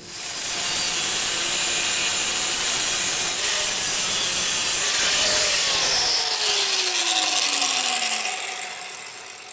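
Electric power tool cutting sheet metal: a loud, steady cutting noise starts at once. In the second half the motor winds down with a whine falling in pitch and the noise fades out.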